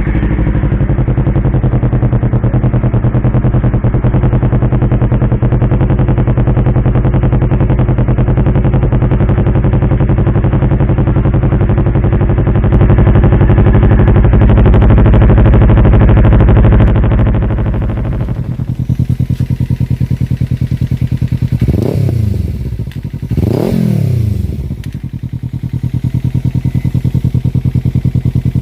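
Kawasaki parallel-twin motorcycle exhaust idling steadily. After about 18 seconds the sound changes, and the throttle is blipped twice in quick succession, each rev rising and falling back to idle, with another rev starting near the end.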